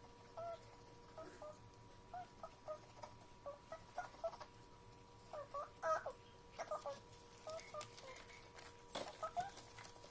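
Faint, short animal calls repeating irregularly a few times a second, over a steady high-pitched whine.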